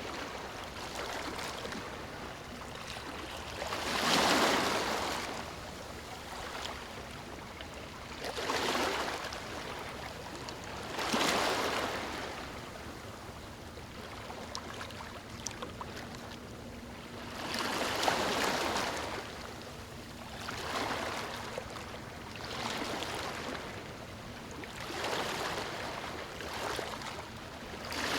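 Ocean waves breaking on a sandy shore: a wash of surf noise that swells and fades every few seconds, with the biggest breaks about four, eleven and eighteen seconds in.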